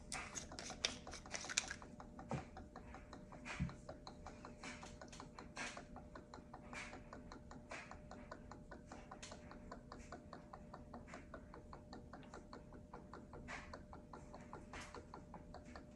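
Faint, irregular ticking as black ink drains from an upturned Epson refill bottle into the ET-2850 EcoTank printer's ink tank, a few louder ticks in the first few seconds.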